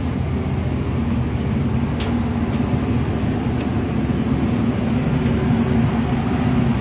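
Ship's engine room with its diesel machinery running: a loud, steady mechanical drone with a low hum under it and a few faint clicks.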